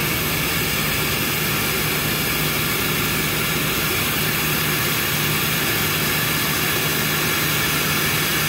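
Air sucking steadily into the vacuum jacket of a 0.7 T MRI magnet through its partly pulled O-ring vacuum plug, a constant rushing hiss as the insulating vacuum is released.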